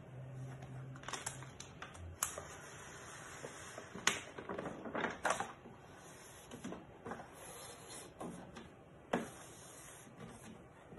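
Scattered light taps, rustles and paper crackle as hands press and smooth a self-adhesive magnetic sheet onto a 3D printer's bed and peel back its paper backing.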